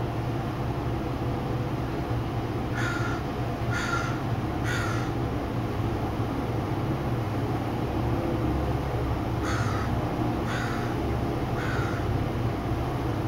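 A crow cawing outside, two series of three short caws, the first about three seconds in and the second near the end, over a steady low hum of city background noise.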